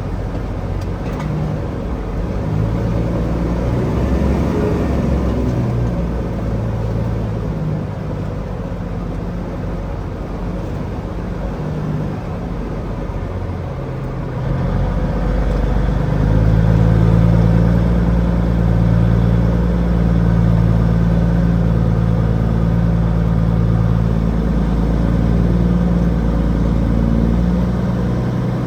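Tractor-trailer's diesel engine running as the truck drives, getting louder and heavier about halfway through.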